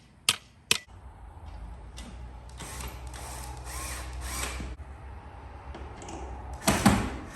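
Two last hammer blows, then a power drill runs for several seconds. A loud knock or clatter comes near the end.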